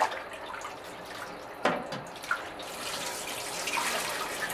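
Ramen soup being ladled from a stockpot and poured through a mesh strainer of pork back fat into a second stockpot: liquid pouring and trickling, with a sharp knock of the metal ladle a little under two seconds in.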